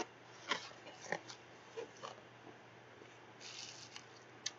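A small cardboard product box being handled and opened: a few light taps and clicks, and a brief papery rustle about three and a half seconds in.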